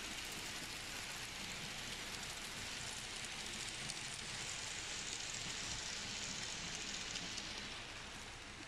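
H0-scale model freight train running over the track and a steel bridge, its wheels on the rails making a steady hissing rush. It fades near the end as the last wagons pass.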